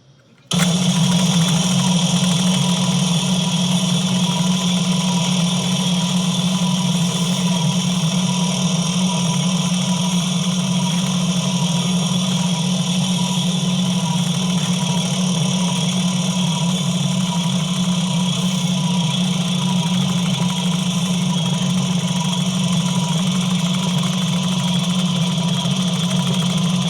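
A steady low hum that starts abruptly about half a second in and holds unchanged, with no clicks or strikes.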